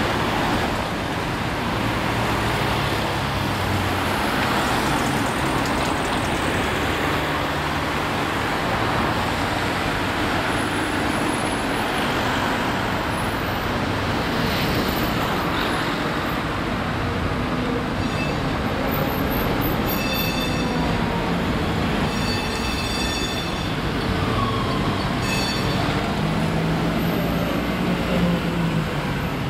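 Busy city street traffic: cars and buses passing electric trams, a steady rumble and tyre hiss. Brief high-pitched squeals come and go in the second half, and a low engine hum swells near the end as a truck passes.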